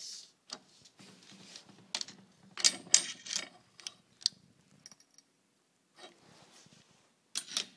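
Handling noise from measuring small metal parts: a run of clicks, light metallic rattles and rustling, loudest in a cluster a third of the way in and again in a short burst near the end.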